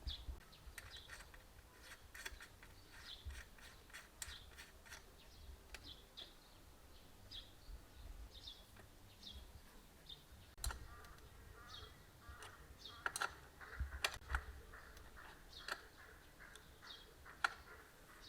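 A small bird chirping repeatedly, short calls about once a second. Over it come scattered sharp clicks and clatters, busier and louder in the second half, with a faint low rumble of wind.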